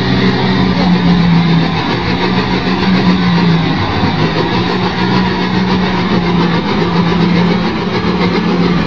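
Lonking CDM833N wheel loader's diesel engine running steadily with a constant drone while the loader moves off with a full bucket of sand.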